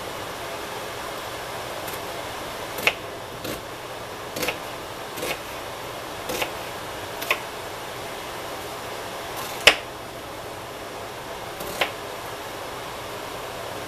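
Kitchen knife cutting onion on a wooden cutting board: about eight sharp knocks at uneven intervals, the loudest about ten seconds in, over a steady background hum.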